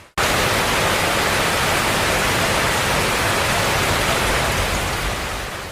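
Steady, dense rushing hiss of water in a flood downpour, starting abruptly and easing off slightly near the end.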